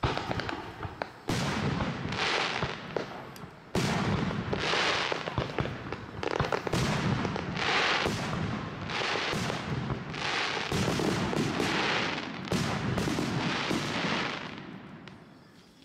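Aerial fireworks shells bursting in a dense run, one boom after another with little gap between, dying away near the end.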